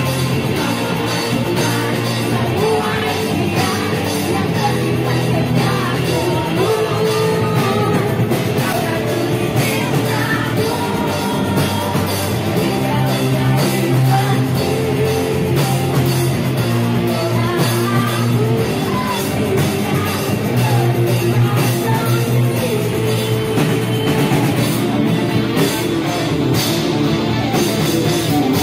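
Live amateur rock band playing: drum kit, bass and electric guitar under a sung vocal line, with a crowd singing along.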